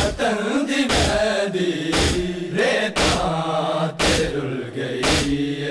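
A noha chanted in a long, drawn-out wailing line, over the unison slaps of a crowd doing matam (chest-beating), about one beat a second. The beats are the loudest sound.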